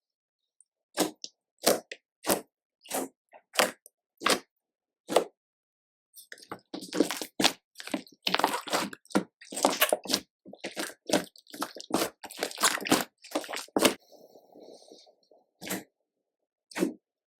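Slime being pressed and stretched by hand. It opens with a string of separate sharp pops, about one every two-thirds of a second, then goes into a dense stretch of wet squishing and crackling, and ends with a few more single pops.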